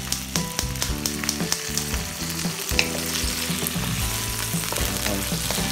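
Shrimp, onion and garlic sizzling in hot oil in a wok, with a wooden spoon scraping and knocking against the pan as it is stirred.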